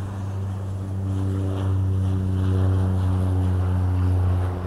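Cessna 208 Caravan's PT6A turboprop at takeoff power during its takeoff roll: a steady propeller drone with a low hum and a stack of higher tones. It grows louder about a second in as the plane passes.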